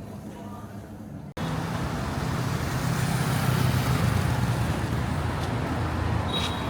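Steady street traffic noise with a low engine rumble from passing vehicles. It starts abruptly about a second and a half in, after a quieter stretch.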